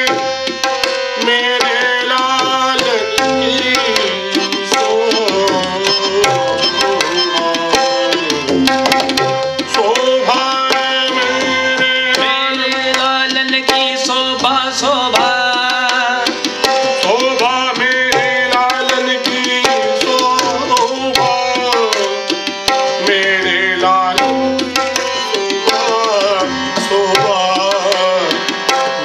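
Sikh kirtan: harmoniums play held chords and melody while tabla keeps a steady, busy rhythm of strokes. A man's voice sings the shabad in gliding, ornamented phrases that come and go.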